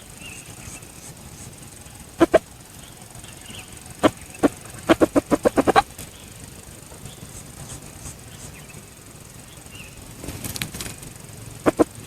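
Junglefowl cock clapping its wings: sharp claps in short runs, a pair about two seconds in, two single claps around four seconds, then a quick run of about eight in under a second, and another pair near the end.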